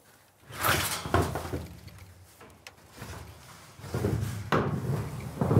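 Knocks and thuds of a wooden rabbit cage and its corrugated metal roof sheet being handled, in two bouts: one about half a second in and a longer one from about four seconds in.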